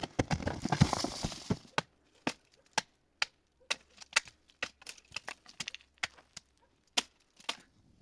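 A dense crunching rustle for about the first two seconds, then single sharp knocks or clicks at irregular intervals, one to three a second.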